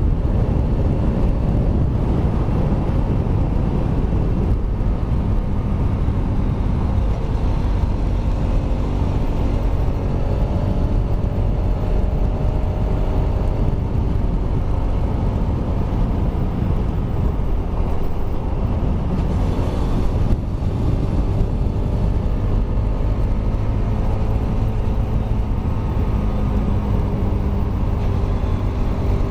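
Kawasaki Rouser RS200 single-cylinder engine running while the motorcycle is ridden, with the canister removed. The exhaust note is steady, drifting slightly up and down in pitch with the throttle, with a brief dip about two-thirds of the way through.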